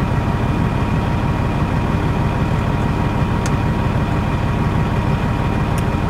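Semi-truck diesel engine idling steadily: a low, fast, even rumble that doesn't change, heard through the glass of a cab.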